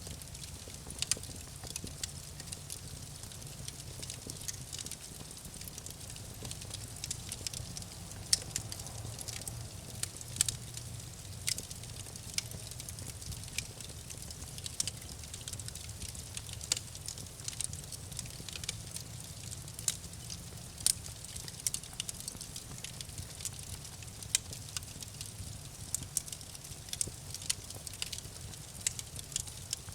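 Campfire burning, with frequent irregular sharp crackles and pops from the burning wood over a steady low rumble of flame.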